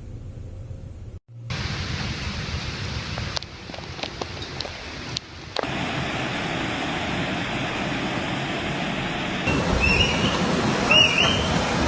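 Storm noise: a steady rush of wind and rain or storm water, in several short clips cut together, with a few sharp clicks in the middle and brief high-pitched cries near the end.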